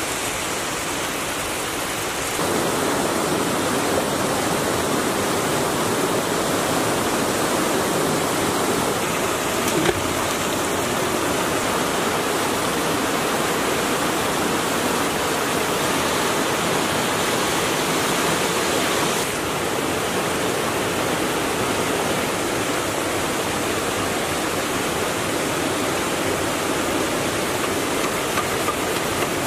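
Mountain stream rushing over rocks: a steady rush of water, a little louder from about two seconds in.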